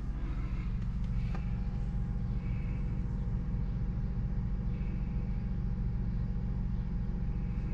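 Steady low machine hum with a faint high tone held over it, and a faint tap about one and a half seconds in.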